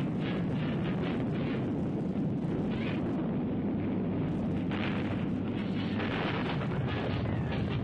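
Sound effect of a volcano erupting: a continuous deep rumble with repeated swelling blasts of noise over it.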